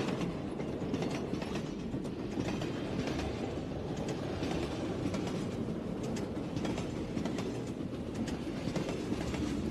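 Passenger train running: a steady rumble of the rail carriage, with faint clicks of the wheels here and there.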